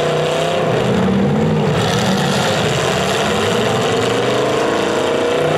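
Several demolition derby cars' engines running and revving together, their pitch rising and falling as the cars push against each other.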